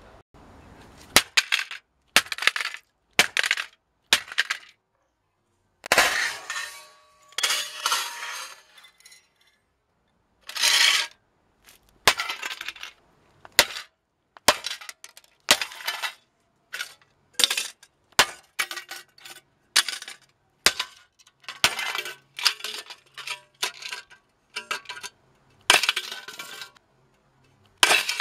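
Sledgehammer repeatedly smashing computer parts of plastic and sheet metal on concrete paving: a long series of sharp crashing blows with cracking and clinking of breaking pieces, some blows coming in quick clusters with short pauses between.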